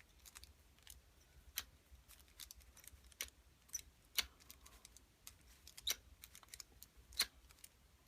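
Scattered light clicks and taps, with a few sharper knocks, from hard objects being handled and shifted around.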